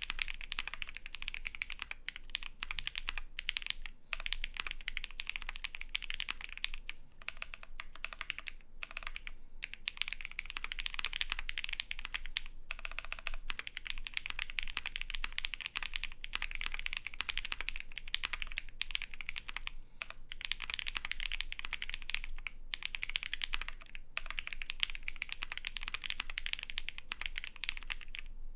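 Continuous typing on a custom ai03 Vega mechanical keyboard with lubed Holy Panda tactile switches on a polycarbonate plate, foam-dampened, with GMK keycaps. A dense stream of keystrokes with a few short pauses.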